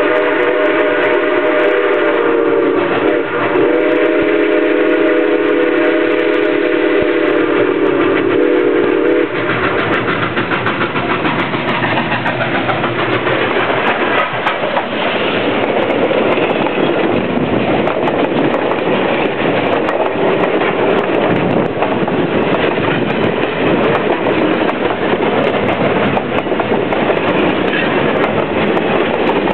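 Southern Pacific 2472 steam locomotive blowing its steam whistle in one long blast that cuts off about nine seconds in. Then the engine passes close by with steam hissing, and its passenger cars roll past rumbling on the rails.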